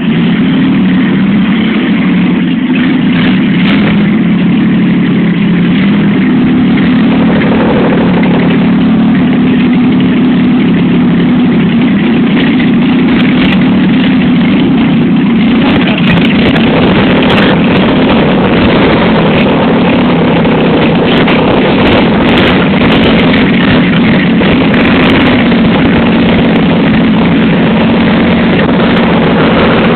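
Jeep Gladiator's Tornado overhead-cam straight-six engine running steadily at idle.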